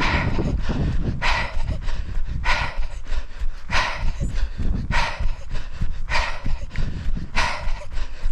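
A runner breathing hard, a heavy exhalation about every second and a bit, over a steady low rumble of wind on the microphone.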